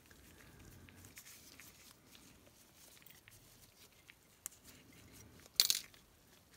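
Faint handling noise of nitrile-gloved hands and a metal pick tool working at a machined metal lightsaber hilt part, with small scratches and clicks and one sharp click about five and a half seconds in.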